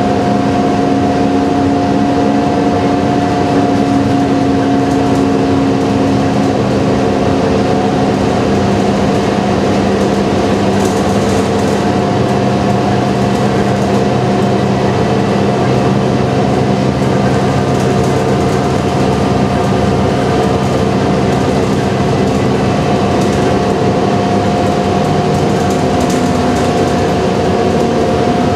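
Inside a moving transit bus: the engine and drivetrain run steadily with a constant whine over road and tyre noise, a few of the tones shifting slightly as the bus changes speed.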